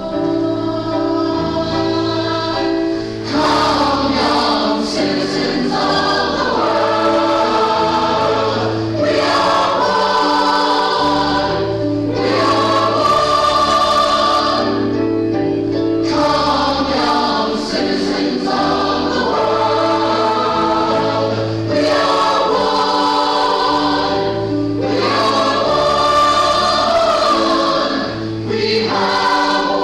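A choir singing a sacred piece in sustained chords over a steady bass line, phrase after phrase with brief breaks between.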